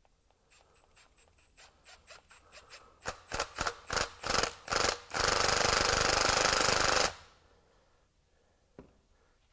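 A Milwaukee M12 Fuel cordless power tool drives down a valve spring compressor bolted over an LS cylinder head, compressing a valve spring. It starts as a string of short trigger pulses that grow louder, then runs steadily for about two seconds before stopping. A small click follows near the end.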